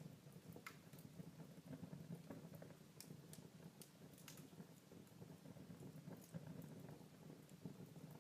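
Wood fire burning in a fireplace, faint: a low steady crackle with sharp pops every second or so.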